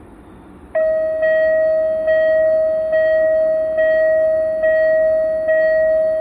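Railway level crossing warning bell starting up about a second in and ringing on steadily: a single bright tone struck a little faster than once a second, each stroke dying away before the next. The signal that a train is approaching the crossing.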